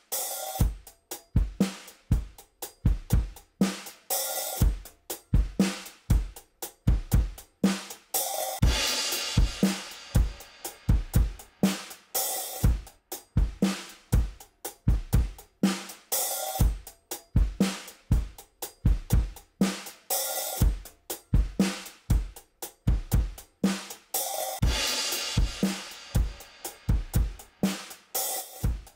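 Recorded drum kit playing a steady groove, with kick, snare and hi-hat and a crash cymbal about every four seconds. The drum bus is processed by a WesAudio Beta76, an 1176-style compressor.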